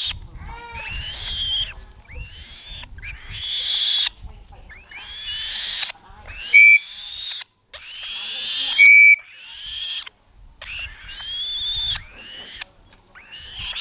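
A young black-shouldered kite calling over and over, about once a second, with rising, wheezy calls typical of a chick begging for food. Twice, a few seconds apart, a brief loud steady high note stands out above the calls.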